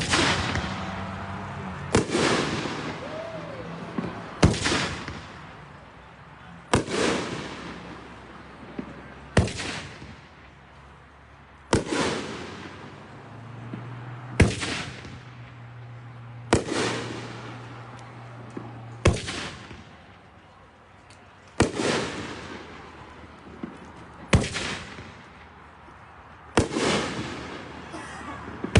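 Consumer fireworks 9-shot ring cake firing shell after shell: a sharp bang about every two and a half seconds, each fading out over a second or two.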